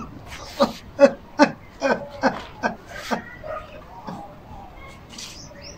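A man's voice making short, nonverbal cries that fall in pitch, about two a second, growing fainter after about three seconds.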